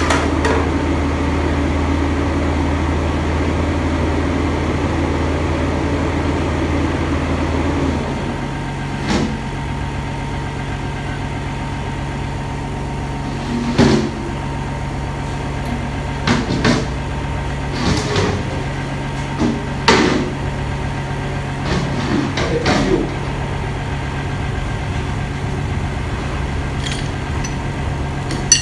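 A steady low machine hum, deeper and louder for the first eight seconds, with irregular metallic knocks and clanks of tools on metal, heard several times in the second half.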